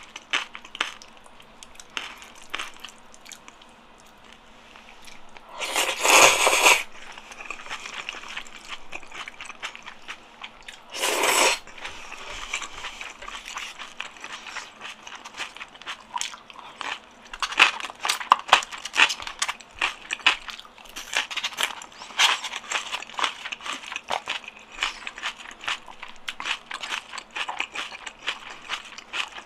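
Close-miked mouth sounds of eating black bean sauce noodles (ganjjajang): chewing with many small wet clicks and smacks, and two louder slurps, one about six seconds in and a shorter one about eleven seconds in.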